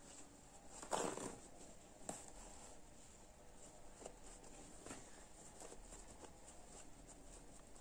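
Faint rustling of fabric and satin cord being handled as the cord is worked through a cloth bag's drawstring casing on an elastic threader. A louder brushing rustle comes about a second in, followed by a few small soft ticks.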